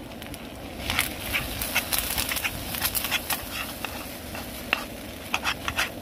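A metal spoon stirring chilli and rice in a metal camping pan on a gas stove. From about a second in it gives irregular scrapes and clinks against the pan, over a steady sizzling hiss from the hot food.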